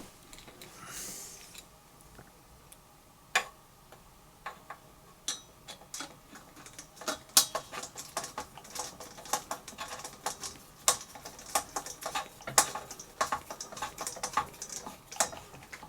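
Small metallic clicks and taps of a hand tool working a mounting bolt as it is tightened. They are sparse at first and come quickly and irregularly through the second half.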